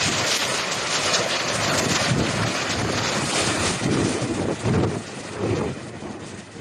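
Strong gale-force wind blowing hard and buffeting the microphone, a dense rushing noise that eases somewhat near the end.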